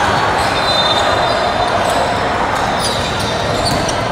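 Volleyball gym ambience: a steady din of a crowded hall with short high squeaks and the thuds of balls being hit.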